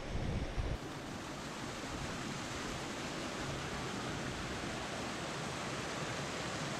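Wind on the microphone: a few low gusts buffet it in the first second, then a steady rushing hiss.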